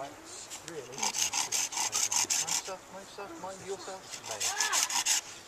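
A small hand saw cutting across a thin birch branch in quick, even rasping strokes. It pauses about halfway through, then saws again near the end.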